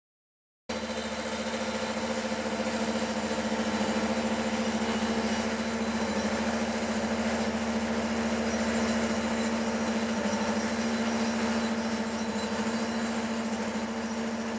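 RD200 resonant pile driver running at a steady pitch as it vibrates a steel sheet pile into the ground: a loud, even machine hum with a strong constant tone. It starts suddenly about a second in.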